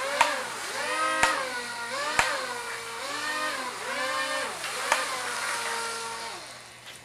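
Small propeller motors of a homemade foam hovercraft, taken from a toy RC F-22 plane, whining and swinging up and down in pitch about once a second as the throttle is pushed and let off. There are a few sharp clicks, and the whine fades away near the end.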